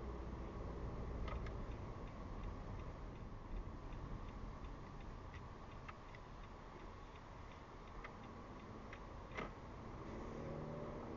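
A car's turn-signal indicator ticking steadily, about three clicks a second, inside the cabin over low engine and road rumble. One louder click comes near the end.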